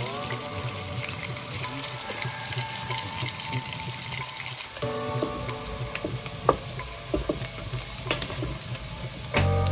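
Pieces of hare meat frying and sizzling in oil in a frying pan. In the second half a spatula clicks against the pan now and then as the browning pieces are stirred.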